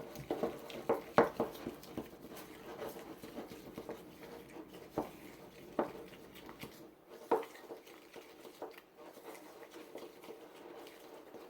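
A utensil stirring a mayonnaise and spice mixture in a bowl, with irregular clicks and taps against the bowl that come thickly in the first couple of seconds and then only now and then.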